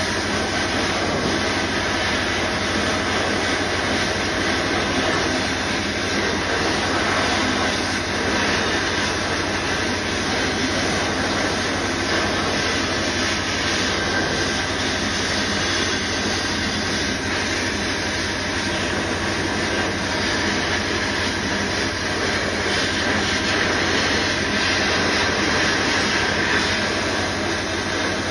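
Sandblasting cabinet in use: a steady, unbroken hiss of compressed air and abrasive blasting from the nozzle, with a low hum underneath.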